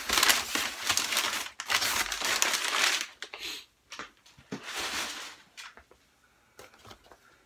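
Crumpled brown kraft packing paper crinkling as it is pulled out of a cardboard box. It is dense and loud for the first three seconds, then comes in a few shorter rustles.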